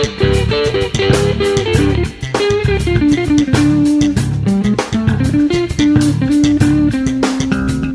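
Background music: a guitar melody over bass guitar and drums with a steady beat.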